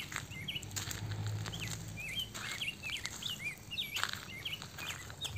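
Small birds chirping over and over in short, bending notes, with a few footsteps on a gravel path.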